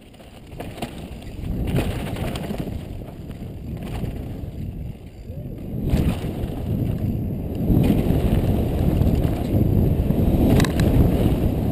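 Mountain bike ridden fast down a steep, loose dirt and rock slope: wind rumbling on the helmet-mounted camera and tyres crunching over dirt and gravel, growing louder as the speed builds, with a few sharp knocks from the bike over bumps.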